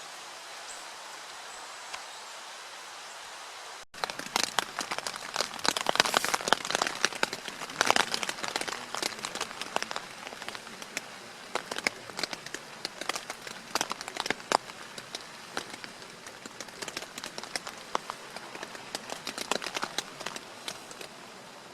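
A steady outdoor hiss, then after a cut about four seconds in, many irregular sharp taps of raindrops on a surface. The taps are densest for the first few seconds and thin out later.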